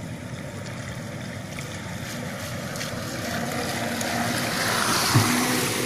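Twin brushed 795 electric motors of an RC model boat whining while the hull hisses through the water, growing steadily louder as the boat comes in close. One brief thump about five seconds in.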